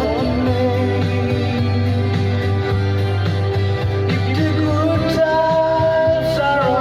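Country-folk song with guitar accompaniment and a singing voice.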